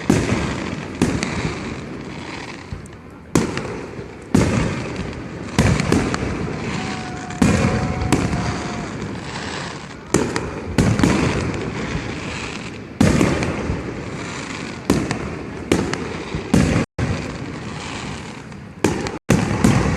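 An irregular run of loud gunpowder bangs, roughly one every second, each followed by a long echoing rumble as the next one overlaps it.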